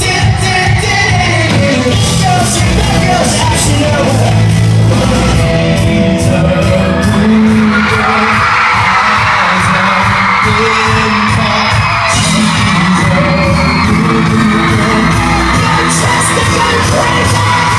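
Pop-punk band playing live and loud: electric guitars, bass and drums with singing. It grows denser and brighter from about eight seconds in.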